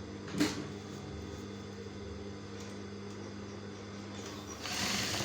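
Fabric and a zip being handled at a sewing machine: a short sharp click about half a second in and a brief rustle near the end, over a steady low electrical hum.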